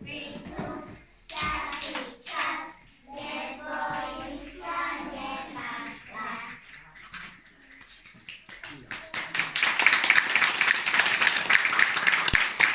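A group of young children singing a song in Slovak. The singing ends, and applause starts about two-thirds of the way through and is the loudest sound.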